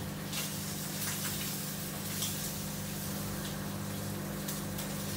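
Samsung front-loading washing machine mid-wash: a steady drum-motor hum under water sloshing and splashing as the laundry tumbles in the drum.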